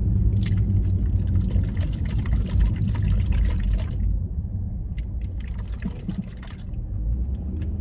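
Liquid sloshing in a plastic juice bottle filled with oil as it is shaken for about four seconds, then a few light clicks as the cap is handled. A car's low rumble runs underneath.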